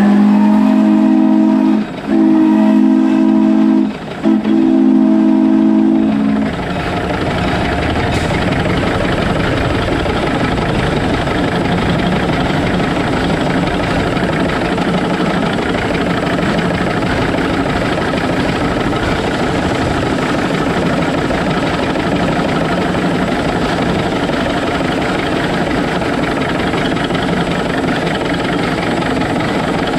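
Shay geared steam locomotive's steam whistle blowing a chord of several tones for about six seconds, broken twice by short breaks. After that the locomotive runs and rolls along the track with a steady, even noise.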